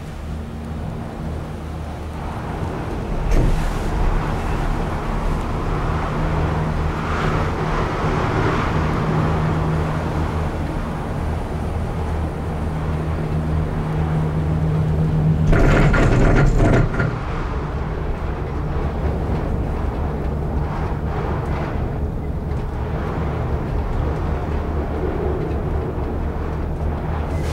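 Ride inside a BreckConnect Gondola cabin: a steady low hum with rattling of the cabin on the haul rope, broken about two-thirds of the way through by a loud clattering rumble lasting about a second and a half.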